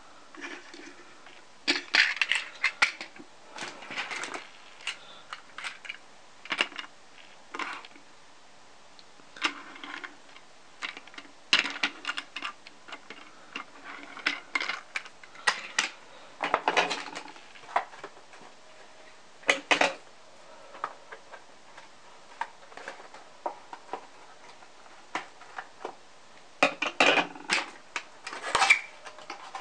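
Plastic Plarail toy shinkansen cars handled and pushed by hand on a wooden tabletop: irregular clicks, knocks and rattles of hard plastic body and wheels, with bunched clatters near the start, in the middle and near the end.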